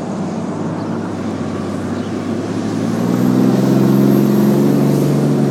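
A combustion engine runs steadily with a low, even drone, growing louder about three seconds in. It is really loud.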